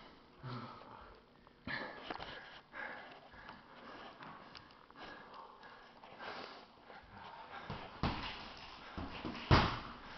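Handling noise close to the microphone: rustling with a few bumps, the loudest about nine and a half seconds in.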